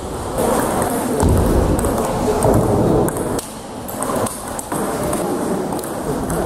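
Table tennis ball clicking off the bats and the table during a rally, a run of sharp, irregular clicks over the steady background noise of a large hall.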